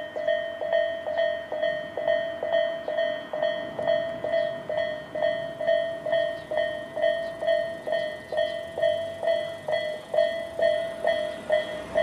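Japanese level-crossing warning bell of the Tobu type-A tone, sounding from both sides of the crossing: a steady ringing ding repeated a little over twice a second. It signals that the barriers are down for an approaching train.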